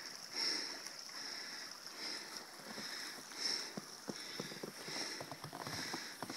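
Creek water running steadily, with footsteps crunching in snow coming in about halfway through.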